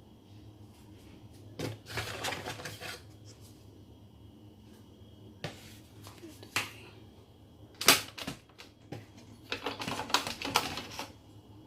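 Clattery clicking and rattling from hard objects being handled, in several short bursts with pauses between them.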